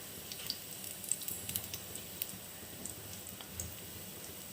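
Onion pakoda frying in hot oil in a kadai: a steady faint hiss with many small scattered crackles and pops.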